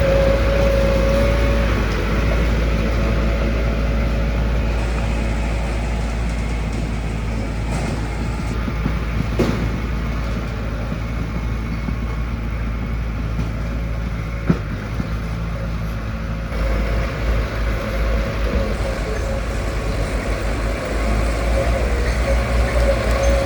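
Heavy diesel construction machinery running steadily, with a droning engine tone, a sharp knock about nine and a half seconds in and another about five seconds later.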